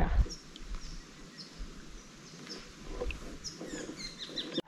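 Wild birds chirping and calling in short, scattered high notes over faint outdoor background noise.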